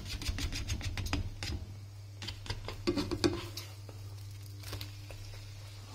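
Plastic slotted spatula scraping and tapping against a nonstick wok as frying eggs are broken up and turned, a quick run of scrapes for about three seconds ending in a few louder strokes. A steady low hum runs underneath and is left alone after that.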